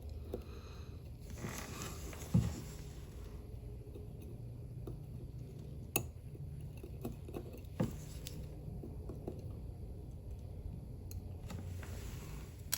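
Small clicks and taps of metal tweezers and tiny watch parts being handled during movement disassembly, with a few sharper clicks spread through, over a low steady hum.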